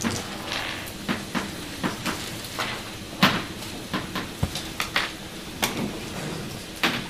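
Chalk writing on a blackboard: irregular sharp taps and short scrapes, about two a second, with the loudest tap about three seconds in.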